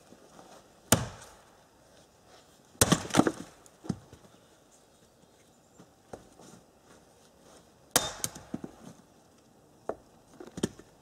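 Hatchet chopping pieces of wood on a stump chopping block. There is a sharp chop about a second in, a quick run of strokes around three seconds, and another run around eight seconds, with lighter wooden knocks between them.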